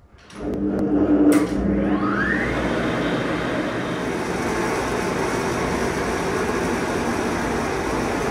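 Hydraulic power unit of a 1964 Gebauer lift starting up. A few sharp clicks come from the relay controls, then the oil-submerged pump motors start with a steady hum and a short rising whine about two seconds in, and run on steadily.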